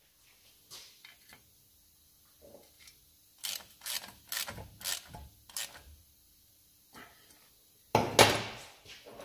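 Metal hand tools and parts being handled and set down in a workshop: a run of sharp clinks about three and a half seconds in, then a loud metallic clatter with a short ringing tail near the end.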